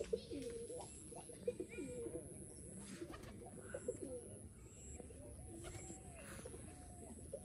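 Several pigeons in a netted pigeon loft cooing over one another in short, repeated low coos.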